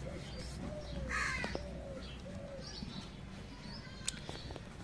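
Background birdsong: a crow caws once about a second in, with softer low cooing calls around it. A light click sounds near the end.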